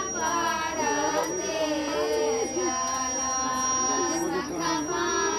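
Singing voices with long held notes, mixed with people talking, and a thin steady high tone running beneath.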